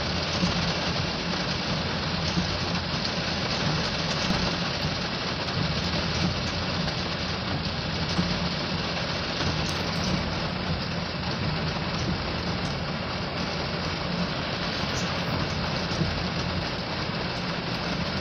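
Heavy rain falling on a car's roof and windshield, heard from inside the cabin, over the steady hum of the car's idling engine.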